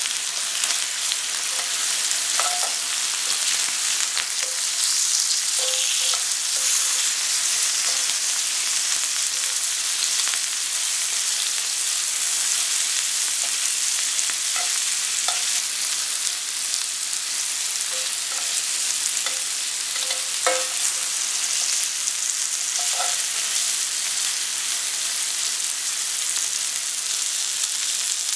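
Sous-vide-cooked chicken breasts sizzling in butter in a cast-iron skillet, a steady high hiss. Metal tongs turning the pieces clink briefly against the pan now and then.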